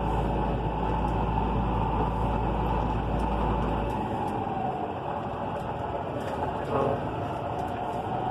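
Fendt 930 Vario tractor's six-cylinder diesel engine running at about 1,000 rpm, heard from inside the cab as the tractor drives slowly. Its deep low rumble eases about four seconds in as the revs drop, and a short rising sound comes near the end.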